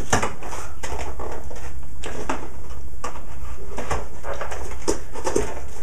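A cardboard toy box being handled and pulled apart by hand: irregular scraping, rustling and knocking noises.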